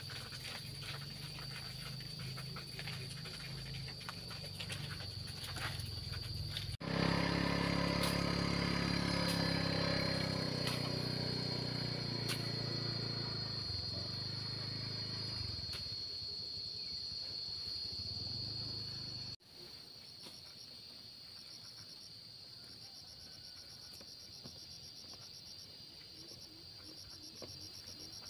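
Insects droning steadily on one high note. A louder low hum joins about seven seconds in and stops abruptly about two-thirds of the way through. After that, rapid pulsing insect chirps sit over the drone.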